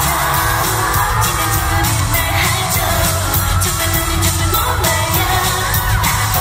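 Pop song with singing and a steady beat, played loud over a concert sound system and recorded from the audience.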